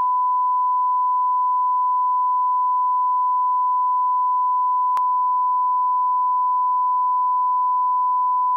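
Steady 1 kHz broadcast reference tone, the line-up tone that runs with color bars at the head of a commercial master: one unbroken pure beep at constant level, with a brief click about five seconds in.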